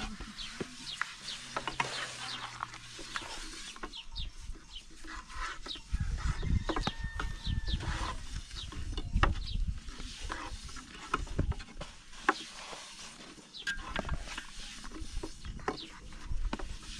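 Long thin wooden rolling pins clicking and tapping against wooden boards as thin flatbread dough is rolled out, an irregular run of quick knocks. A low rumble comes in through the middle stretch.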